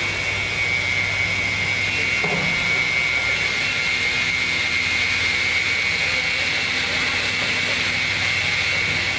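Multi-blade rip saw running without a cut: a steady high whine over a low hum.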